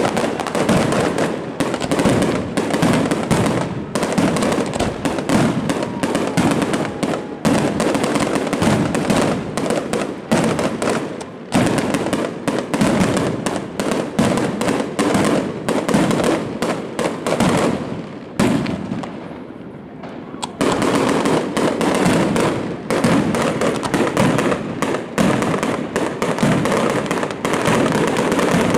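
Aerial fireworks going off in a dense, near-continuous barrage of rapid bangs. The barrage thins briefly about two-thirds of the way through, then picks up again.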